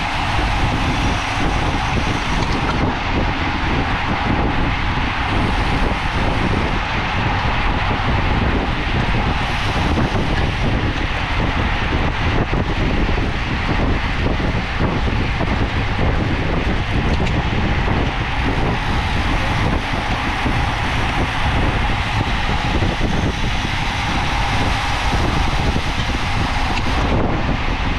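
Wind buffeting the microphone of a camera on a bicycle ridden at race speed: a steady, loud rushing noise with a heavy, fluttering low rumble.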